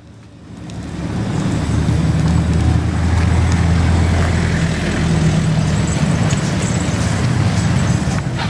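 A motor vehicle's engine running close by with a steady low hum over street traffic noise, swelling up over the first couple of seconds and then holding steady.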